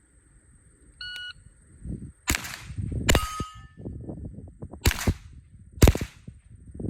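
Four single gunshots at uneven spacing, about a second or two apart, the second followed by a brief metallic ring. A short electronic beep sounds about a second in, before the first shot.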